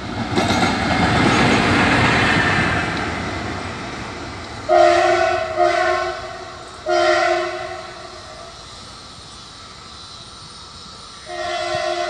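Light-running WDG4G diesel locomotive passing, its engine and wheel noise swelling and fading over the first few seconds. Then its two-tone air horn sounds three blasts in quick succession, the third longer and fading out, and a fourth blast near the end.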